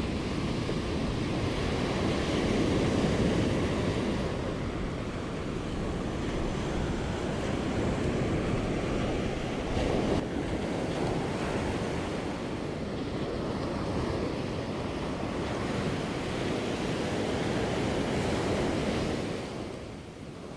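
Ocean surf breaking and washing up on a sandy beach, a steady rushing wash, with wind buffeting the microphone.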